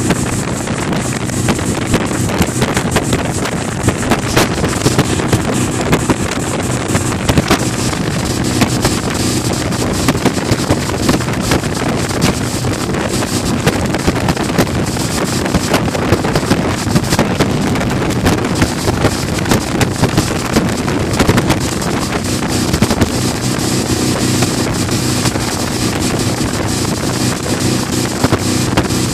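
Outboard motor of a tow boat running steadily at speed, heavily buffeted by wind on the microphone, with the rush of the boat's wake.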